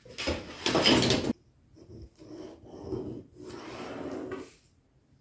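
Brown pattern paper being handled on a table: a loud rustle and rub for about a second that stops sharply, then softer rubbing and scraping as a long metal ruler is slid across the paper.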